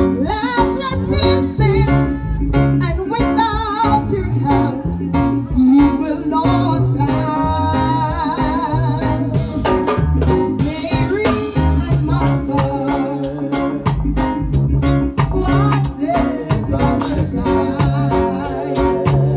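Music with guitar and a singing voice over a steady beat.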